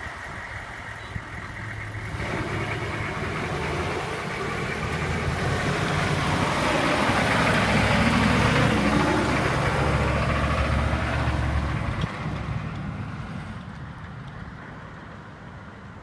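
2000 Chevrolet 3500HD's 6.5-litre V8 diesel engine running as the truck drives by. It grows louder as the truck approaches, is loudest as it passes about halfway through, drops off sharply a few seconds later and fades as the truck moves away.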